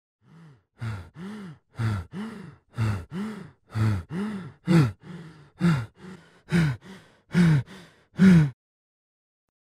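A person's voice making a quick run of about fifteen short wordless vocal sounds, about two a second, each rising and then falling in pitch.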